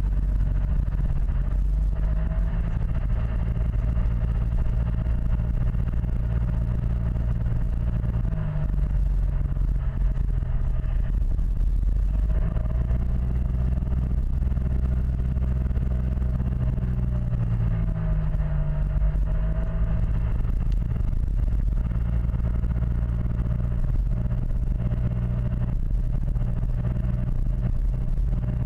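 Yamaha T-Max XP500 maxi-scooter's parallel-twin engine running under way. Its pitch falls and then rises again twice, about nine seconds in and again around nineteen seconds.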